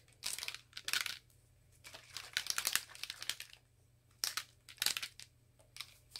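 Mixing ball rattling inside a bottle of Jacquard Piñata gold alcohol ink as the bottle is tilted and shaken, in several short bursts of clicking with pauses between.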